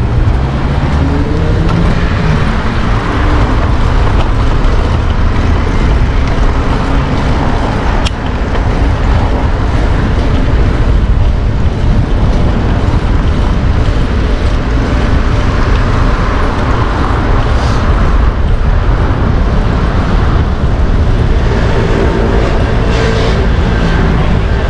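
Wind rumbling on the microphone of a moving bicycle over busy street traffic, with a motor vehicle speeding up near the start and a steady engine hum near the end.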